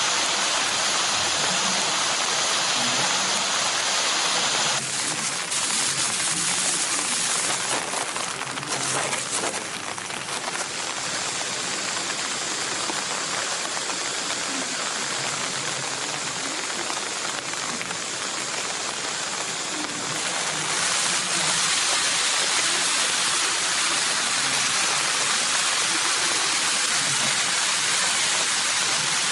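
Steady rain falling, a dense hiss with no other sound standing out; it is a little softer from about five seconds in until about twenty-one seconds in.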